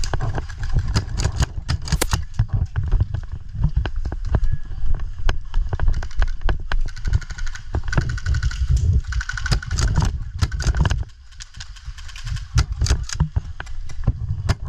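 Wind rumbling on a body-worn action camera's microphone, with many irregular sharp clicks and knocks over it. The rumble drops away briefly about eleven seconds in.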